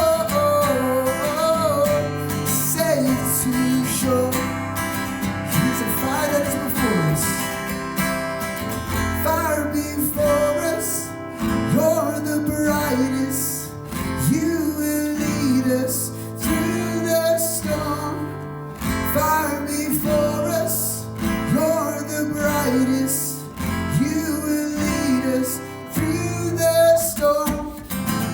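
Worship band playing an instrumental passage led by strummed acoustic guitar.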